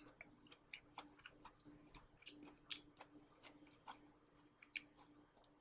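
Faint chewing of dry-fried green beans, picked up close by a shirt-clipped microphone: irregular soft clicks and crackles, over a faint steady low hum.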